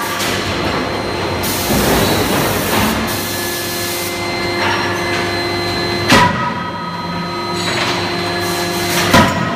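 Anyang 31.5 kJ CNC fully hydraulic closed-die forging hammer striking hot steel: two sharp blows about three seconds apart, each with a short metallic ring. Under them runs a steady hum and whine of hydraulic and shop machinery, with a stretch of hiss about one and a half seconds in.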